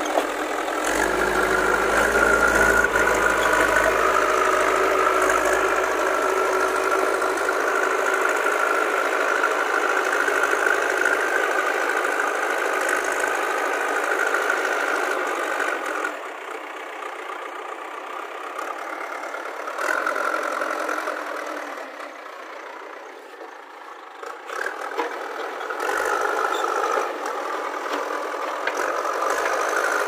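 JCB 3DX backhoe loader's diesel engine running hard while the front loader bucket pushes into earth and brush. The engine note eases off about halfway through, picks up briefly, dips again, then climbs back up for the last few seconds.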